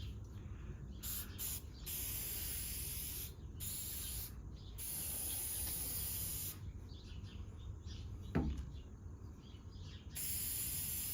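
Finish being sprayed onto ceiling fan blades in a series of hissing bursts of uneven length with short pauses between, and one short thump about eight seconds in.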